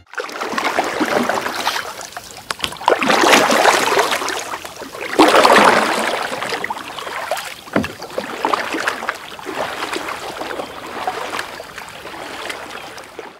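Sea water rushing and splashing against a camera held at the surface from a moving boat, in uneven surges with sharp splashes.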